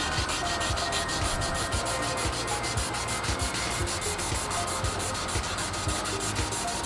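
Wet sandpaper rubbing on a plastic headlight lens in quick, even back-and-forth strokes, wet-sanding out a surface scratch.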